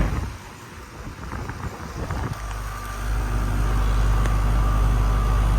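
Payne Performance Series central air conditioner condensing units with Emerson scroll compressors running: a steady low compressor-and-fan hum with a faint higher whine. The hum comes in about two and a half seconds in, after a quieter start, and then holds steady.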